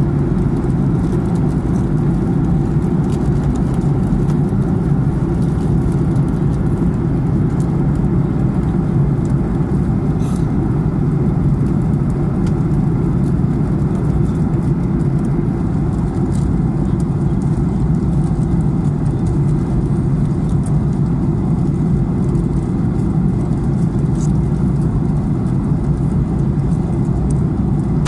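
Steady, loud cabin noise of a jet airliner in cruise flight, a constant low rumble of engines and airflow heard inside the cabin.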